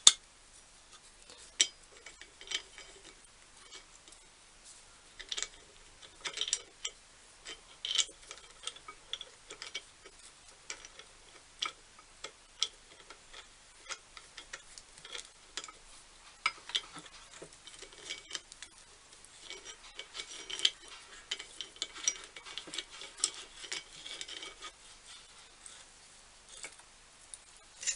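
Small metal parts clicking and scraping as a wing nut is threaded on and tightened by hand: irregular light ticks.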